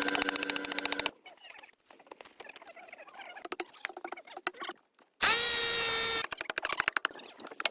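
Woodworking tool sounds cut together: a power tool motor running with rapid clicks, then a stretch of light, irregular tapping and clicking. About five seconds in comes a second, louder burst of motor whine lasting about a second, followed by more clicking.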